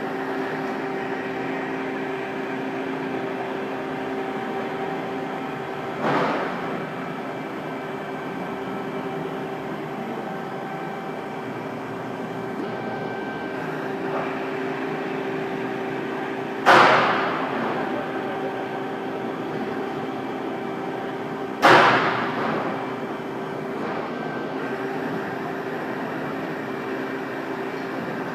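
Amada hydraulic CNC press brake running, its hydraulic pump giving a steady hum with several steady tones. Three sudden sharp sounds cut in, about six seconds in and then louder twice near the middle, each fading away over about a second.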